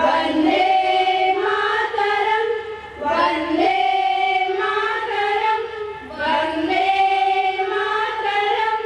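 A group of schoolgirls singing together in unison into a microphone, in long held phrases with short breaks about three and six seconds in.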